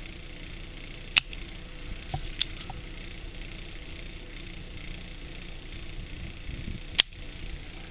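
Desoldering iron being worked on the solder joints of a bulb on a wiper switch circuit board: two sharp clicks, one about a second in and a louder one near the end, with a smaller tick between, over a steady hum.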